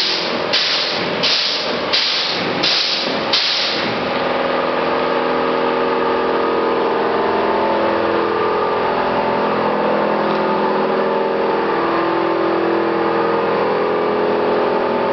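Car-wash machinery. For about four seconds there are regular bursts of hissing spray, roughly one and a half a second. Then a steady motor hum with several tones runs on, some drifting slowly up and down in pitch.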